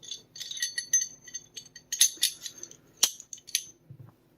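Small steel pistol parts clinking and rattling as a Sig Sauer P365 barrel is fitted into its slide, with a few sharp clicks; it stops about three and a half seconds in.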